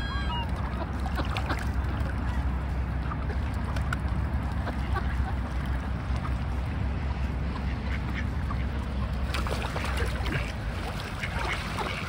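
Mallards and whooper swans calling on the water, scattered quacks and honks that grow busier near the end, over a steady low rumble.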